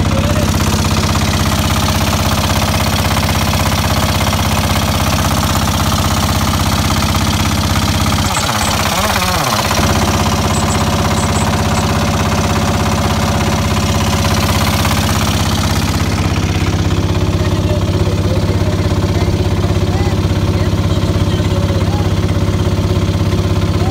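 Motorboat engine running steadily with a fast, even knock, with a brief dip and recovery in pitch about eight to ten seconds in.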